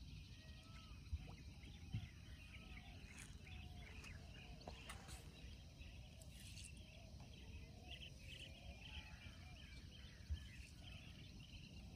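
Near silence with faint bird calls and insect chirping, and a few soft knocks.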